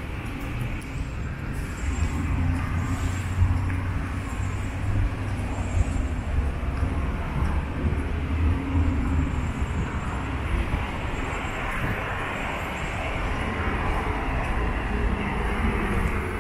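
City street ambience: a steady rumble of traffic from cars passing on a wide avenue.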